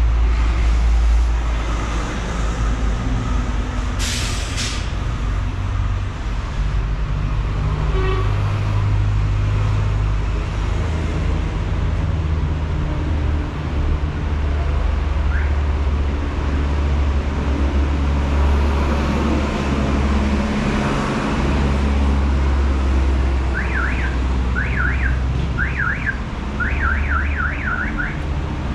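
Street traffic rumbling steadily, with a short hiss about four seconds in. Near the end comes a rapid, high warbling in a few short bursts of quick up-and-down sweeps.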